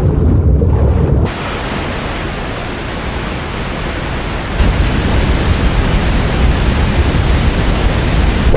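Muffled underwater rumble that cuts about a second in to the steady rushing hiss of a large waterfall pouring into a pool. The rushing grows louder and deeper about four and a half seconds in.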